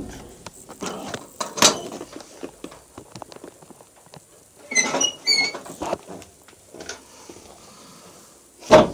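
Scattered knocks, thumps and rustling from someone moving about inside an old van body, with a sharp thump about two seconds in and the loudest one near the end. A few short high squeaks come about five seconds in.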